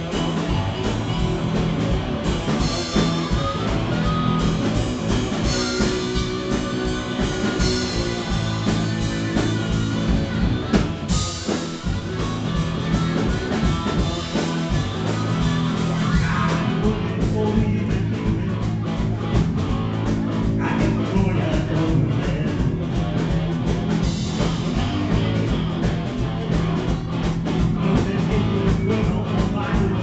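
Rock band playing live: guitars and drums, loud and continuous, with a short break in the music about twelve seconds in.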